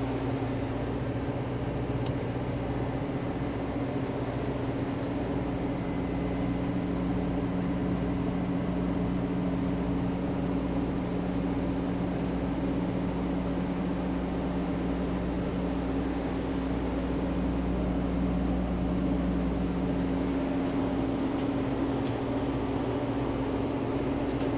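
Steady machinery hum inside a vehicle, a low drone made of several unchanging low tones over a faint hiss.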